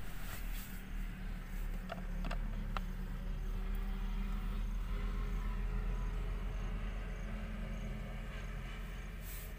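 Steady low vehicle rumble, with a few light clicks about two to three seconds in.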